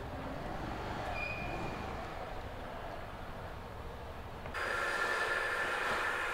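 Low background noise of a motorbike service workshop. About four and a half seconds in, a machine starts up abruptly and keeps going with a steady whine and hiss.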